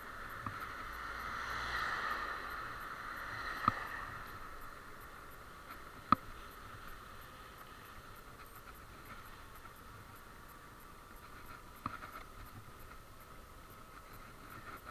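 Riding noise of a Zappy electric scooter picked up by a chest-mounted action camera: a steady rushing noise that swells about two seconds in, broken by three sharp knocks, the loudest about six seconds in.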